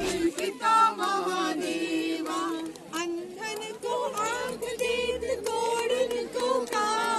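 Hindu devotional singing in a chant-like style, with voices sliding between notes over a steady held tone, at the Lakshmi-Ganesh puja.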